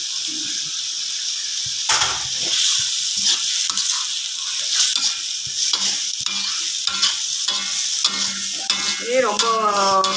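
Tofu and garlic chives sizzling in a hot metal wok while a metal spatula stirs and scrapes through them, with repeated clicks and scrapes of the spatula on the pan over the steady sizzle.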